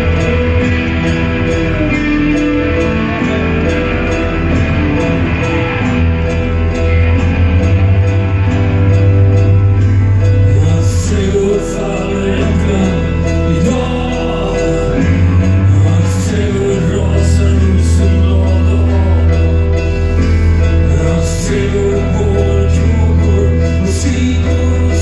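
Live band playing with a male singer: a heavy bass line under sustained guitars, with cymbal strikes coming in about ten seconds in.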